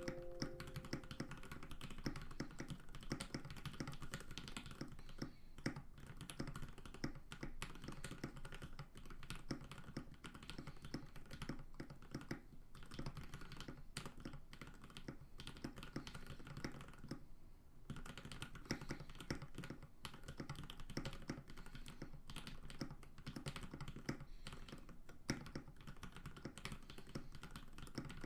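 Continuous fast typing on a custom 65% mechanical keyboard, the GrayStudio Think 6.5 V2, with lubed and filmed Lavender linear switches on an FR4 plate, dampened with case silicone and plate foam. It makes a quick run of key clicks with a few short pauses.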